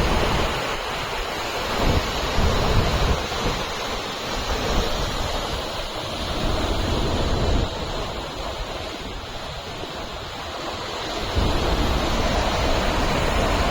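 Steady roar of the Chitrakoot waterfall on the Indravati river, with wind buffeting the microphone in uneven low rumbles.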